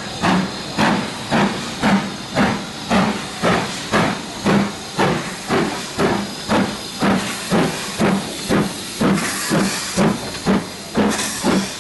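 BR Standard Class 4 two-cylinder steam locomotive working a train, its exhaust chuffing steadily at about two beats a second over a constant hiss of steam. The high hiss grows stronger near the end.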